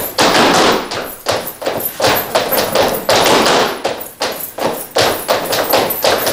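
Boots of a line of Cretan folk dancers stamping and stepping on a wooden floor: repeated thuds and taps, about three a second, with no music.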